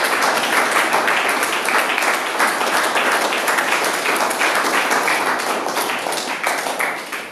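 Audience applauding: many people clapping together, a dense patter that fades away near the end.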